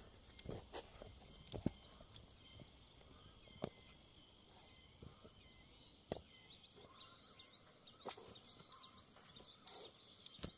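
Quiet field ambience: a few scattered soft footsteps of rubber boots on loose tilled soil, with faint high bird chirps in the background.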